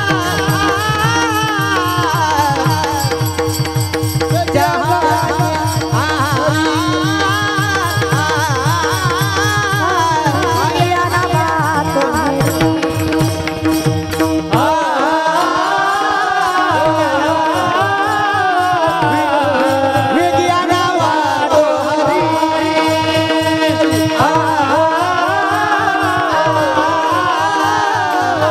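A chorus of men singing a Marathi kirtan melody together, with brass hand cymbals (taal) clashing in time over a steady held drone note. A low drum beat runs under the singing and drops out about halfway.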